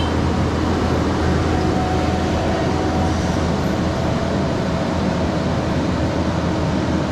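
Kubota SVL95-2S compact track loader with a GyroTrac forestry mulching head, its diesel engine and hydraulics running steadily, with a faint steady whine.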